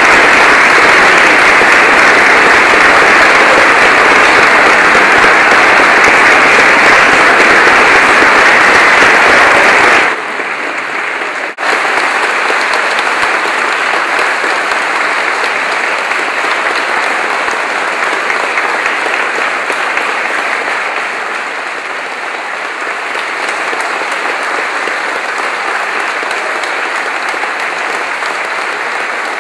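Concert audience applauding. About ten seconds in, the sound drops suddenly in level and loses its low end, and the applause goes on more quietly.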